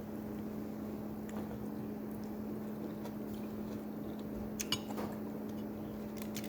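Eating at the table: quiet chewing and a few sharp clicks of utensils on dishes, the loudest about four and a half seconds in, over a steady low hum.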